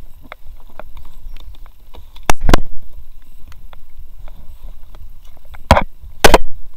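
Paddle shaft knocking and bumping close to the microphone in an inflatable kayak: two sharp knocks about two and a half seconds in and two more near the end, among light clicks and rustles.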